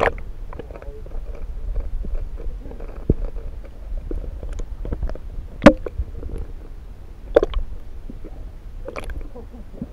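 Muffled underwater sound from a camera submerged in a swimming pool: a low rumble with scattered clicks and a few louder knocks, the sharpest about halfway through.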